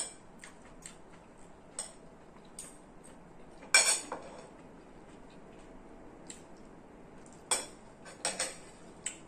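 Metal spoon and fork clinking and scraping against a ceramic plate while eating rice: scattered sharp clinks, the loudest about four seconds in and a small cluster near the end.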